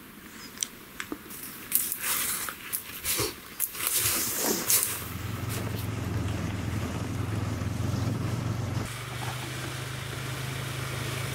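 A series of sharp snaps and rustles of brush, then an ATV engine running steadily while riding along a trail, its tone shifting once near the end.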